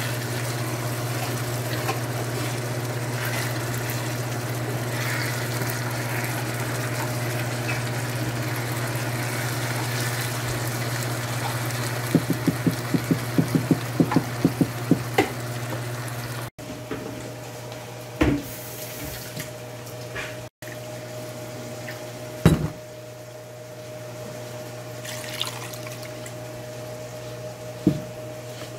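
Onions and tomatoes frying in a nonstick pan, sizzling steadily while a silicone spatula stirs them, with a quick run of taps against the pan about twelve seconds in. After a sudden cut the sizzle stops, leaving a quieter steady hum and a few single knocks.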